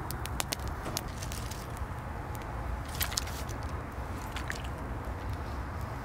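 Log campfire crackling, with scattered sharp pops over a low steady rumble; the loudest pop comes about three seconds in.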